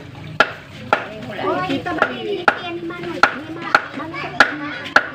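A heavy knife chopping through large fish on a wooden board: sharp, separate chops, about eight of them, roughly one every half second.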